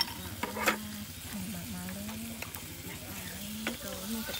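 Food frying and sizzling in a pan while being stirred, with two sharp clicks near the start. A low voice is heard faintly underneath.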